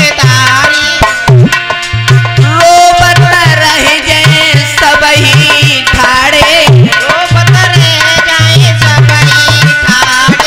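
Live devotional bhajan music: a hand drum keeps a quick, steady rhythm under a melody, with a man singing.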